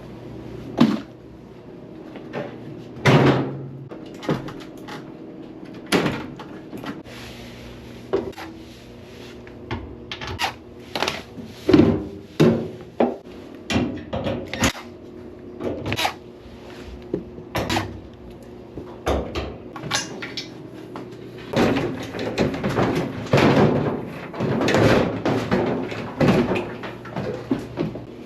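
Irregular knocks, clicks and clatters, bunched more thickly in the second half, over a steady low hum.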